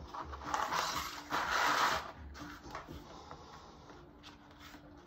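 Acrylic cutting templates and a cutting mat sliding and scraping across vinyl floor tiles, two scrapes in the first two seconds with the second the longest and loudest, then a few light taps as they settle.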